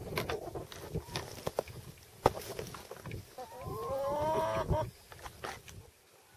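A pot-bellied pig moving through dry straw, with rustling and scattered clicks. About three seconds in, a farm animal gives one drawn-out call lasting about a second and a half.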